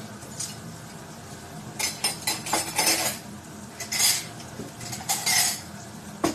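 Metal cutlery and dishes clattering: a run of clinks and rattles from about two seconds in until a little past the five-second mark, as utensils are handled.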